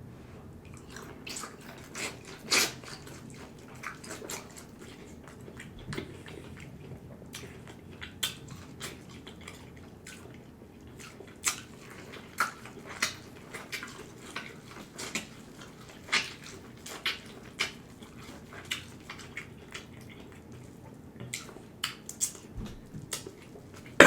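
Close-miked mukbang eating of a seafood boil: wet chewing, biting and lip smacks, heard as irregular sharp clicks, one louder about two and a half seconds in.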